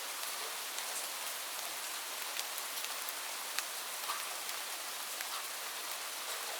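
Light rain falling steadily, a soft even hiss with scattered individual drops ticking on a surface.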